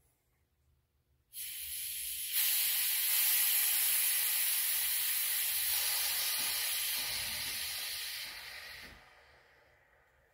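Pneumatic bellows air jack being lowered, its air escaping in a steady hiss. The hiss starts about a second and a half in, grows louder a second later, and tapers away near the end.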